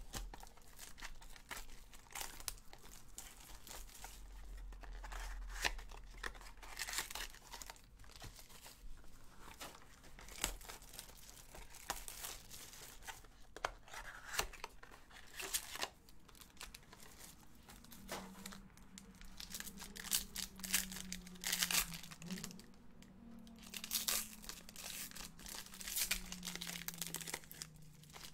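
Cardboard card box being opened and the foil-wrapped pack inside torn open, with repeated tearing and crinkling of the wrapper.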